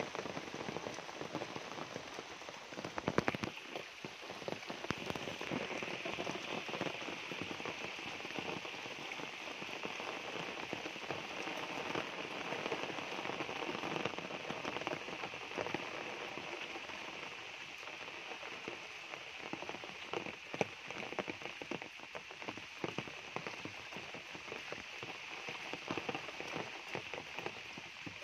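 Steady rain falling on dense tropical foliage and a flooded dirt path: an even hiss with scattered louder drips. A short cluster of louder taps comes about three seconds in.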